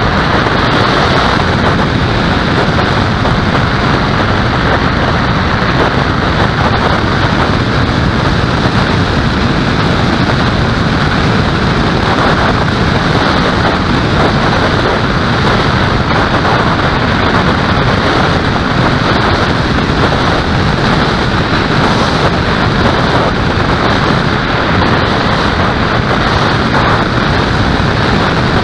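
Loud, steady wind rush buffeting the microphone of an onboard camera on a small aircraft in flight, with no clear engine or motor tone standing out.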